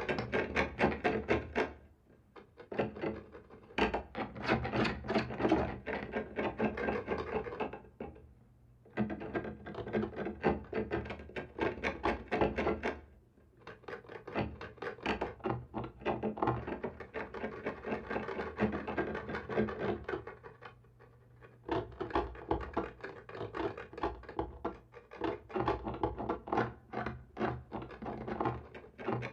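Scratching and clawing on a wall, many quick rasping strokes on a wooden surface in bouts of several seconds with short pauses between.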